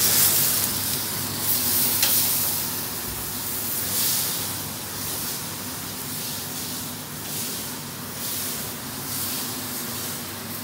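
Steaks sizzling on a char grill with fat flaring into flames: a steady hiss that swells and eases several times, loudest near the start and again about four seconds in. A faint steady hum runs underneath.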